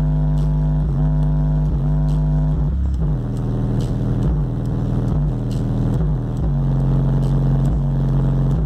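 Loud bass-heavy electronic music: deep, sustained bass notes that change about once a second, over a light ticking beat.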